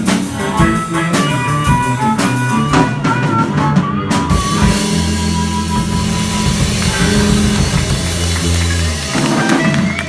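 Live blues band with guitar and drum kit playing the closing bars of a song, then holding a final chord with a cymbal wash ringing from about four seconds in.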